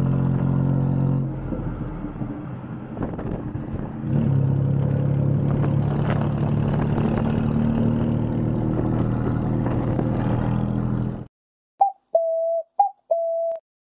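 Tuk-tuk engine running during the ride, easing off about a second in and picking up again about four seconds in. The sound cuts off abruptly near the end and is followed by four short electronic beeps, brief higher ones alternating with longer lower ones.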